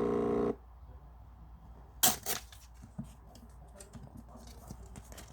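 The thermal printer of an instant-print digital camera running with a steady buzzing whir, which stops about half a second in as the print finishes. About two seconds in comes a sharp double snap, then light clicks and rustles of handling the camera and the paper.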